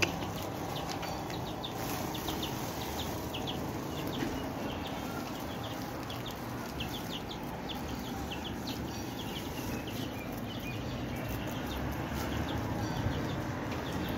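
Birds chirping in quick, irregular succession over steady low background noise.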